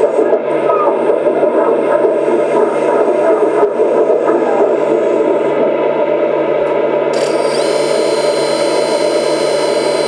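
Kabolite K350-200 1/14 RC hydraulic excavator running with its sound module on: a steady, dense engine sound. About seven seconds in, a higher hiss and whine join it.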